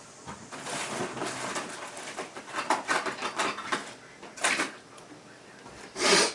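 Rummaging through tools, most likely to find a screwdriver: a run of small clicks and rattles, then a short louder scrape near the end.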